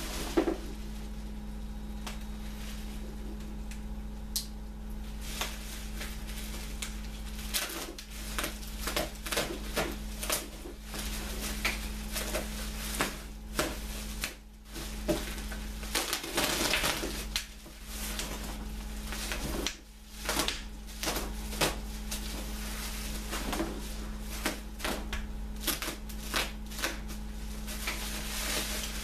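Bubble wrap being handled and pulled at by hand, crinkling and crackling in irregular bursts of sharp clicks and rustles, sparse at first and busier after several seconds.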